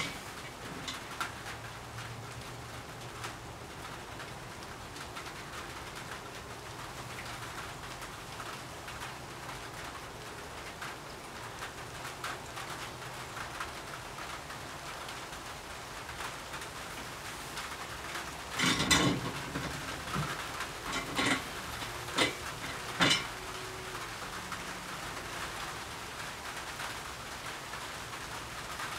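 Steady rain-like hiss, with a few sharp knocks and clatters around two-thirds of the way through.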